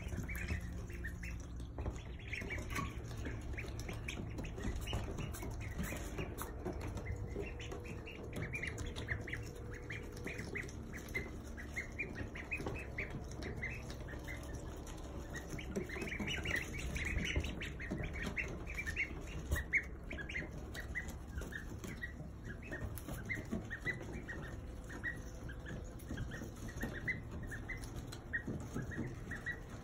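A group of ducklings peeping without pause as they feed, many short, high peeps overlapping one another.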